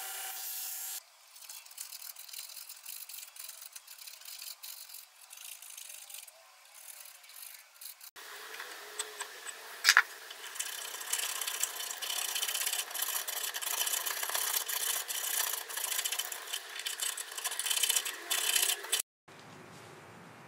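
A belt grinder runs briefly with a steady hum. Then come stretches of hand filing: repeated scraping strokes of a file on steel and wood, faint at first and louder from about eight seconds in, with one sharp click. A quieter steady hiss follows near the end.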